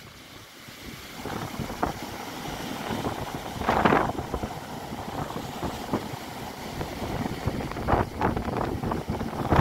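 Rough storm surf breaking on the shore, with wind buffeting the microphone. One wave crashes loudly about four seconds in, and near the end another bursts into spray against a concrete sea wall.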